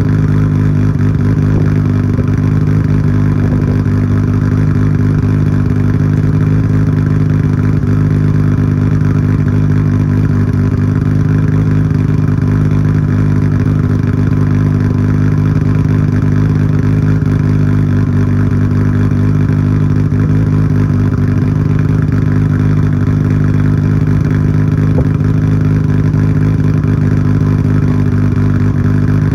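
Nissan Skyline GT-R R34's RB26 twin-turbo straight-six idling steadily through a Tomei Expreme Ti titanium exhaust with its silencer insert fitted, warming up after a cold start. The pitch holds level throughout, with no revs.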